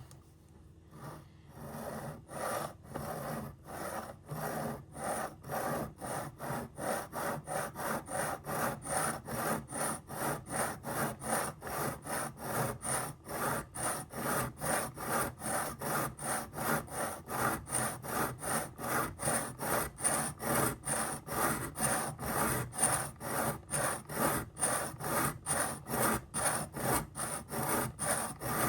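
Knife blade stroked back and forth on a sharpening stone, a steady rhythmic scraping of about two strokes a second that starts faintly and settles into an even pace about two seconds in.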